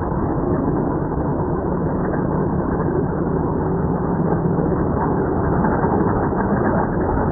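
Steady engine and road noise of a vehicle driving along, with a low engine drone underneath.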